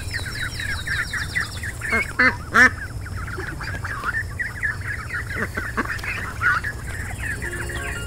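Mallard ducklings peeping continuously in a dense chatter, with a few louder quacks, most likely from the hen, a little after two seconds in.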